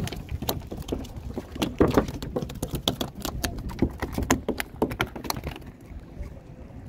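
A rapid, irregular run of sharp knocks and taps over a low rumble, dying away about five and a half seconds in.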